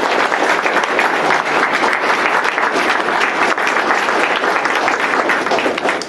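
Audience applauding: steady, dense clapping from many people.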